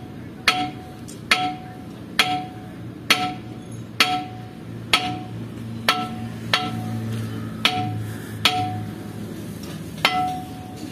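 A hammer striking metal about once a second, eleven blows in all, each with a short ringing clang; the last comes after a slightly longer pause.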